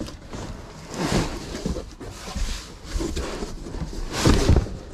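Large cardboard wardrobe box being shifted and handled: irregular cardboard rubbing and rustling, with the loudest scrape near the end.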